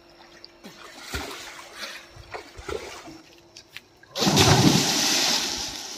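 Faint small splashes of a swimmer in the water, then, about four seconds in, a loud splash as a person dives head-first into the water, fading over about a second and a half.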